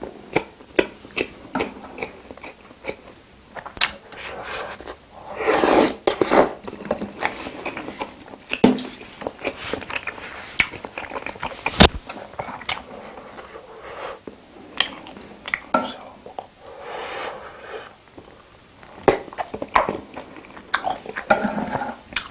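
Close-miked eating of spicy braised seafood: wet chewing and biting with some crunching, and utensils clicking against dishes, with one sharp clack near the middle.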